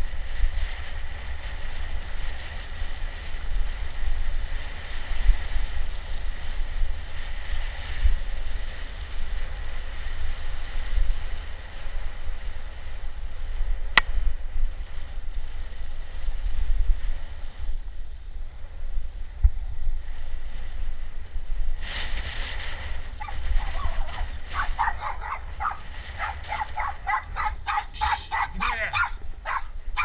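Wind buffeting the microphone over a steady rush of falling water, with one sharp click about halfway. Over the last seven seconds a dog whines and yips in quick repeated calls.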